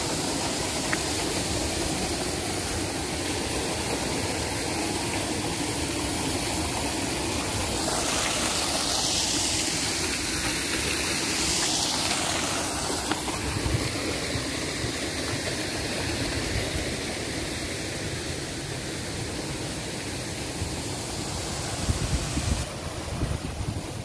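Waterfall rushing steadily, water pouring over rocks and down a slide into a pool, louder for a few seconds in the middle and duller near the end. A few low thumps come in near the end.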